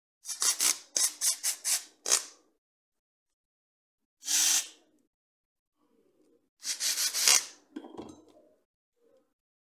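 Small corded electric screwdriver driving screws in short bursts: a quick run of about six, then two longer ones, followed by a few light knocks as the tool is set down.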